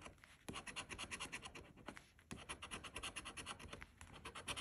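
A coin scratching the coating off a scratch-off lottery ticket in quick, rapid back-and-forth strokes, faint, pausing briefly a couple of times.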